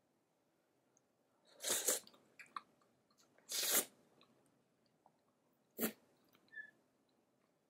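Close-up eating sounds: a spoonful of oatmeal potato soup sipped and chewed. There are three short, noisy bursts about two seconds apart, with a few small clicks between them.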